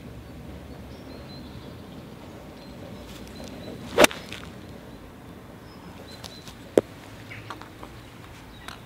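A golf iron swung at a ball on turf about four seconds in: a short swish rising into one sharp crack as the club strikes the ball. A little under three seconds later comes a second, shorter sharp click.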